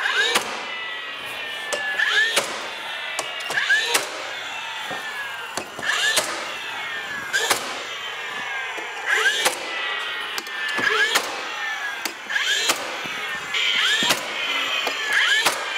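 DeWalt cordless 15-gauge finish nailer driving 2.5 inch nails through window casing into the wall framing: about ten shots, roughly one every second and a half, each a sharp crack followed by a falling whine as the motor runs down.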